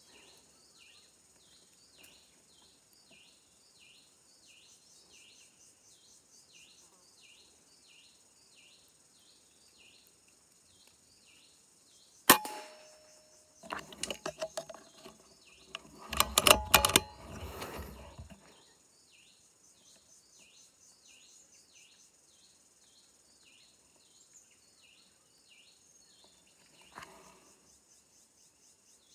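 A single sharp crack from a .22 (5.5 mm) air rifle firing at a squirrel about twelve seconds in, followed a second later by a few seconds of irregular rattling and knocks. Insects buzz in a pulsing chorus, about two pulses a second.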